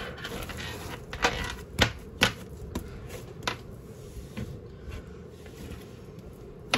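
Slime being pressed onto a tabletop and pulled off again to lift leftover glue and shaving foam, giving irregular sharp sticky clicks and pops, about half a dozen, fewer and fainter in the second half.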